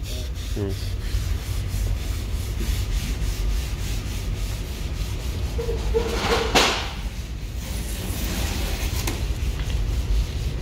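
Hand scuffing of a minibus's painted body panels with an abrasive scuff pad: repeated rubbing strokes over a steady low rumble, with a short louder sound about six and a half seconds in.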